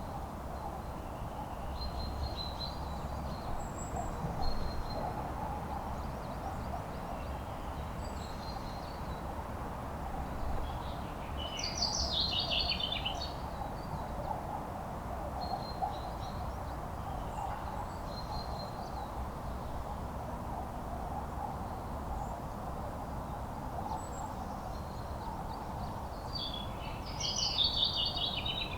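Birds singing: short high chirps throughout, with two louder song phrases, one about twelve seconds in and one near the end, over a steady background hum and low rumble.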